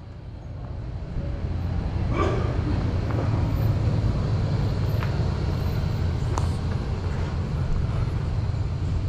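Steady low rumble of a vehicle engine running, fading in over the first two seconds and then holding, with a brief voice about two seconds in.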